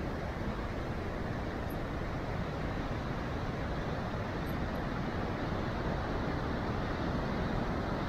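Heavy ocean surf breaking and churning over rocks along the shore: a steady, continuous rush of water with a deep low rumble and no distinct single crashes.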